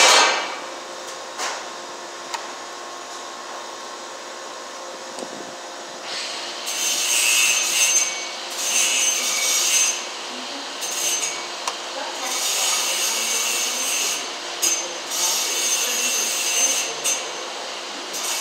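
Hand pliers scraping and rubbing on electrical wires as the conductors are worked at a plastic electrical box. It is fairly quiet with a couple of light clicks at first, then about six seconds in come repeated scraping strokes, each a second or two long.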